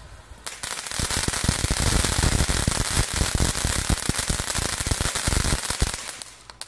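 Fountain firework spraying sparks: a loud hissing rush with dense crackling that starts about half a second in and dies away about six seconds in as the fountain burns out.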